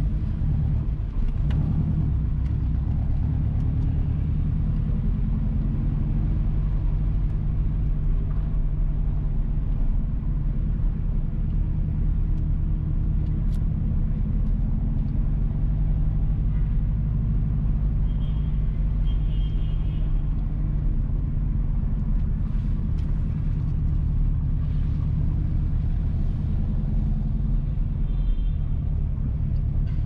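Steady low rumble of a car's engine and tyres while it drives slowly, with a few faint brief high chirps about two-thirds of the way through and near the end.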